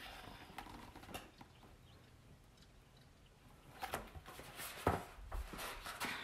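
A hardcover picture book being handled: quiet at first, then paper rustles and knocks from about four seconds in, with a soft thump near five seconds.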